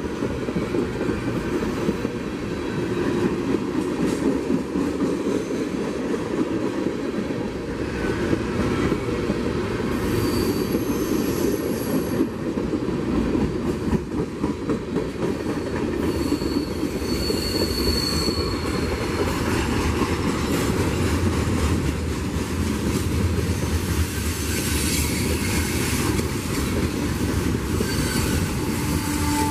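CSX freight train rolling past, its wheels rumbling and clacking steadily over the rails, with a couple of brief high-pitched wheel squeals partway through.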